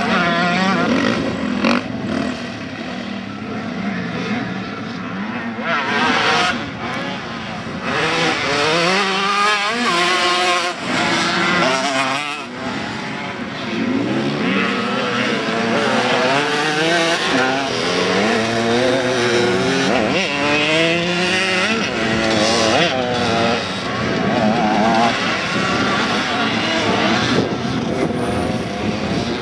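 Off-road motorcycle (dirt bike) engines revving hard and easing off as the bikes ride through a muddy track, the pitch rising and falling again and again with throttle and gear changes; at times more than one engine is heard at once.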